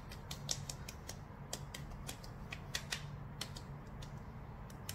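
Fingertips patting and tapping oiled facial skin in a Korean-style tapping face massage: a quick, irregular run of sharp clicks, several a second, over a low steady hum.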